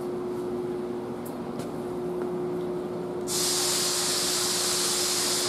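Steady shop hum, then about three seconds in a loud hiss of compressed air starts abruptly and runs for about two seconds.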